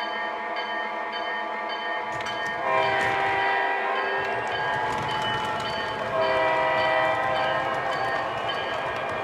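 Onboard sound system of an O scale model diesel locomotive sounding its air horn over a ringing bell that dings about twice a second. The horn gets louder about three seconds in and again about six seconds in.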